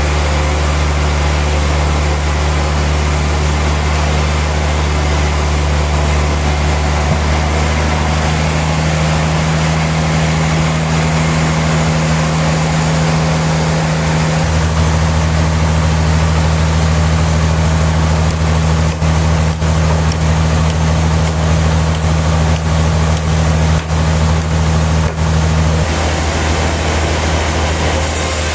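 Heavy sawmill machinery running steadily with a loud low hum. The hum shifts in pitch a few times and partly drops away near the end.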